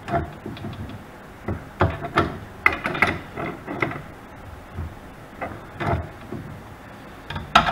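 Channel-lock pliers and a threaded retaining collar knocking and clicking against the spindle of a Rockwell Beaver 3400 wood lathe as the collar is snugged up by hand: a string of irregular metal clicks and clanks.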